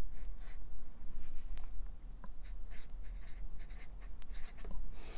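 Felt-tip marker drawing on paper: a string of short strokes as an arrow is drawn and a word is lettered.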